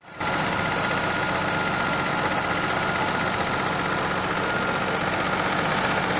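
Freshly rebuilt 2.5L V6 DOHC 24-valve engine of a 2001 Mazda 626 idling steadily just after a cold start, its new crankshaft bearings fitted to cure low oil pressure. A thin steady whine sits over the idle.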